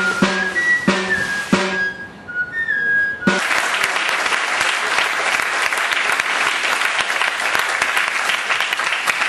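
A high, whistle-like flute melody over steady drum beats ends about three seconds in, and an audience applauds for the rest.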